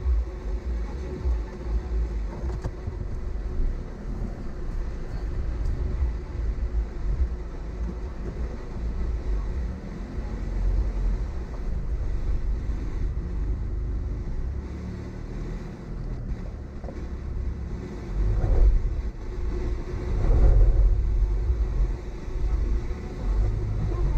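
Car driving slowly over a rough off-road dirt track, heard from inside the cabin: the engine runs steadily under a heavy, uneven rumble of tyres and suspension. The rumble swells louder twice near the end.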